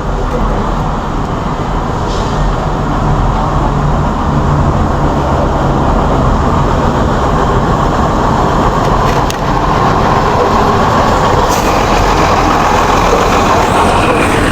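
Motor vehicle running steadily, with engine hum and road noise throughout.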